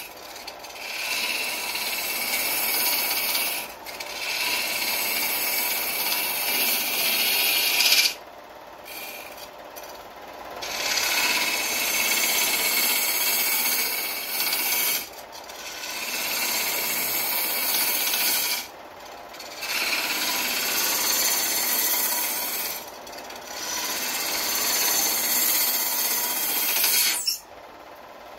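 Hand sanding of a spinning workpiece on a wood lathe: a hissing rub in passes of several seconds, broken by short pauses where only the lathe runs. The rubbing stops about a second before the end.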